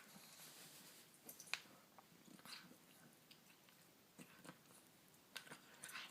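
A pet chewing: faint, irregular mouth clicks and smacks, a handful of them a second or so apart.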